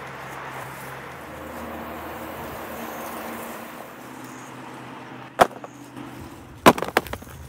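A steady background hiss, then a sharp knock about five seconds in and a quick run of three knocks near the end.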